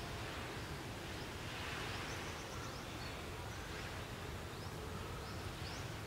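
Forest ambience: a steady hum of insects, swelling and easing about two seconds in, with faint short rising bird chirps now and then.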